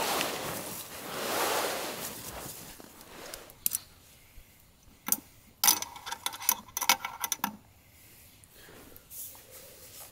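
Rustling of canvas and clothing, then a run of light metallic clicks and clinks from a metal camp lantern's frame and handle as it is picked up and handled.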